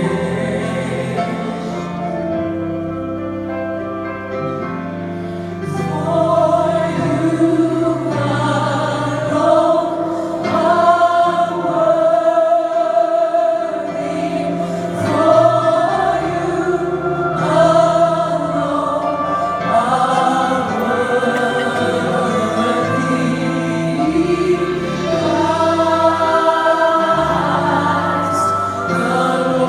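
Choir singing slow sustained chords that change every couple of seconds, the voices growing fuller about six seconds in.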